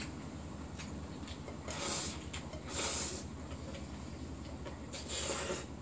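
Noodles slurped three times, at about two seconds, three seconds and again near the end, as cold spicy bibim-myeon is sucked up from the bowl. A washing machine runs steadily underneath.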